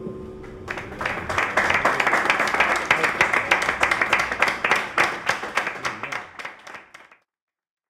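A group of people applauding, starting just under a second in as the last acoustic guitar chord dies away, then thinning out and cutting off abruptly near the end.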